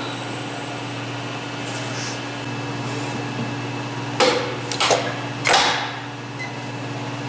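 Powered tube bender's motor humming steadily, with a few sharp metal clanks between about four and five and a half seconds in as the bending die's pin and clamp are handled.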